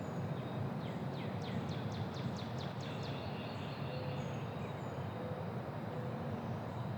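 Quiet neighbourhood ambience: a steady low rumble of distant traffic with birds chirping. About a second in, one bird gives a quick run of about ten falling notes lasting some two seconds.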